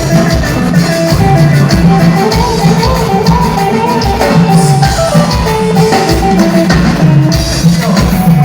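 Live band playing a Latin-style instrumental passage: drum kit and a steady bass line under a melody.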